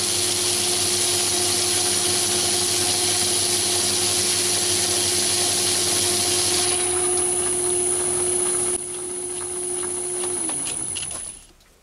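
Myford lathe running with its chuck spinning, then switched off: the running noise falls away about two-thirds of the way through and the motor hum sinks in pitch as it coasts to a stop near the end.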